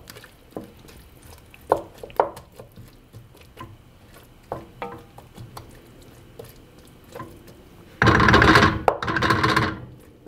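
Wooden spoon stirring diced potatoes in a thick roux in a nonstick pot: scattered light knocks and taps against the pot, then near the end two loud scraping strokes of the spoon through the pot.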